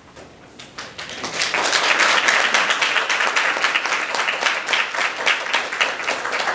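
Audience applauding: the clapping starts about a second in, swells quickly and holds steady.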